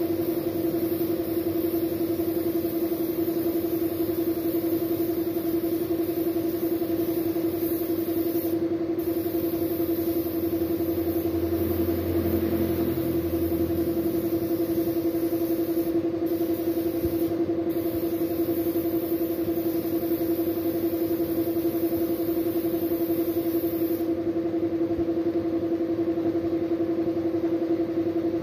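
Air spray gun hissing as it sprays paint onto a motorcycle wheel rim, with the hiss cutting out briefly a few times and stopping about four seconds before the end. Under it runs the steady hum of an air compressor motor.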